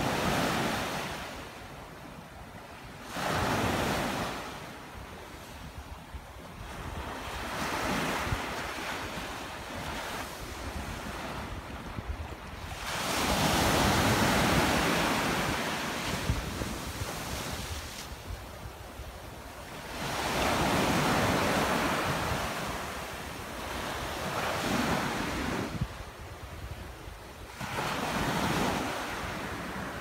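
Sea surf breaking and washing up a sandy beach, the hiss of each wave swelling and fading about every five seconds, with wind rumbling on the microphone.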